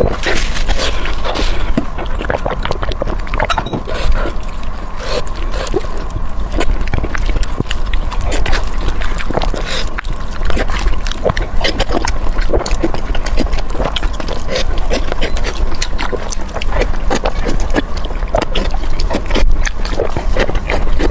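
Close-miked wet chewing and lip-smacking of someone eating chicken: dense, irregular smacks and clicks over a steady low hum.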